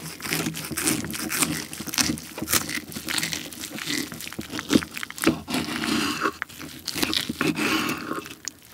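Knife sawing into a roasted pork hock (Schweinshaxe): the crisp skin crackles and crunches under the blade as the meat tears apart, in a dense run of irregular crackles.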